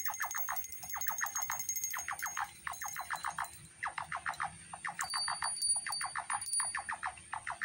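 Electronic synthesizer noise: a repeating pattern of short bursts of rapid clicking pulses, about one burst a second with a brief gap a few seconds in, over a thin steady high whine that gets louder about halfway through.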